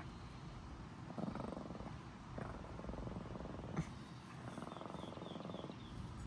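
A cat purring in long pulsing runs broken by short pauses, with a single sharp click about four seconds in.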